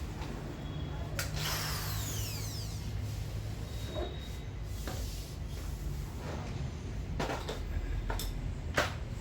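Steady low hum of a hot-air plastic welding setup's air compressor and blower, with several sharp clicks and knocks of tools and bumper plastic being handled.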